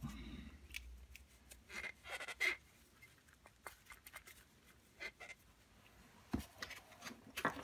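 Gloved hands handling a Howard 200 rotavator's cast-metal clutch housing: scattered faint clicks, rubs and small metallic knocks as the parts are turned over and touch.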